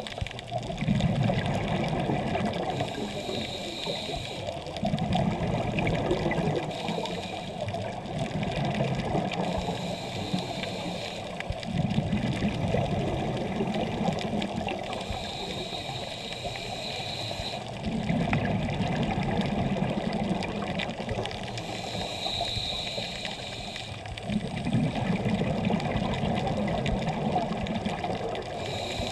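Scuba diver breathing through a regulator underwater: a gush of exhaled bubbles every five or six seconds, alternating with the thin hiss of the inhale through the regulator, about five breaths in all.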